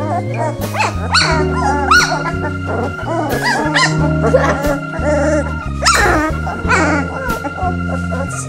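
Three-week-old Bouvier des Flandres puppies squeaking and yipping in short high-pitched cries, the loudest about six seconds in, over background music with steady held notes.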